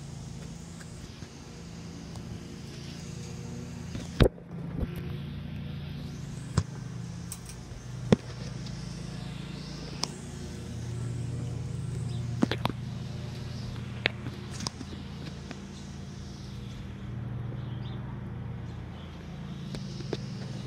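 A steady low mechanical hum that swells a little in the middle, with sharp knocks every second or two.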